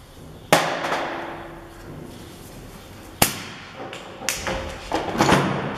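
Hammer tapping the end of a Citroen C15's front drive shaft, several separate knocks spaced irregularly, to free the shaft from the wheel hub.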